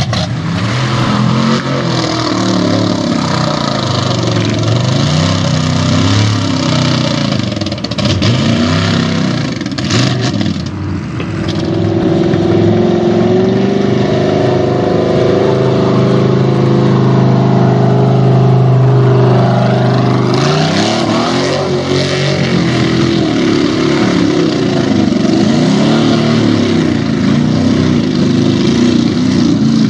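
Engine of a lifted Ford F-series mud truck on big tractor tires, revving up and down over and over. About 12 s in it is held at high revs for several seconds, then falls back to more short rising and falling revs as the truck pushes through the mud pit.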